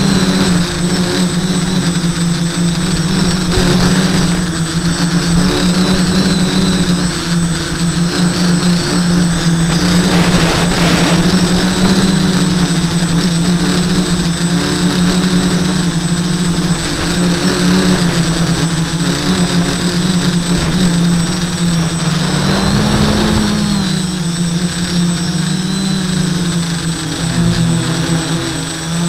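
Quadcopter's four Sunnysky 980kv brushless motors and propellers buzzing steadily in flight, heard from on board, with a hiss that swells twice. The pitch rises briefly about two-thirds of the way through and dips near the end as the throttle changes.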